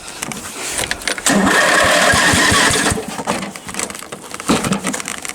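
Riding lawn mower's engine cranking on its electric starter for about a second and a half, with even pulsing turns, then stopping without catching; the engine is cold and wants choke.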